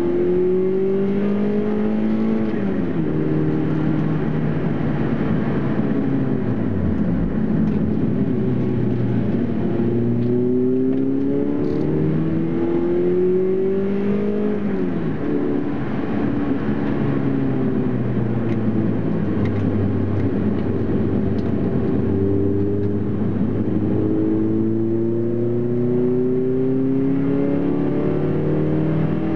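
Toyota Celica ZZT230's 1ZZ-FE inline-four, converted to 2.0 litres, heard from inside the cabin at speed on track. The revs climb slowly under acceleration and fall away three times, once steeply, as the car slows for corners, with tyre and road noise underneath.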